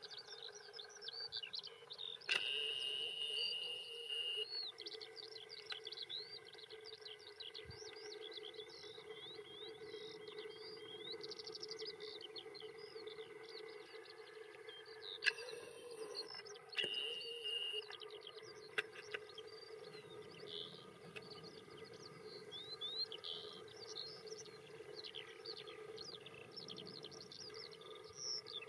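Songbirds singing continuously in open country, a dense run of rapid high chirps and trills over a steady low hum, with a brief steady high whine twice.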